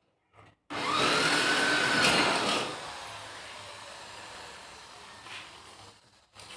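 Electric motor or blower on a coffee roasting machine switched on: a whine that rises as it spins up over a rushing of air, loud for about two seconds, then settling to a quieter steady rush that dies away near the end.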